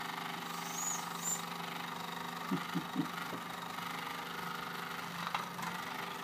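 1920s Bing toy steam engine running steadily under steam, its small flywheel spinning, giving a steady whirring hum. A couple of faint high squeaks come about a second in.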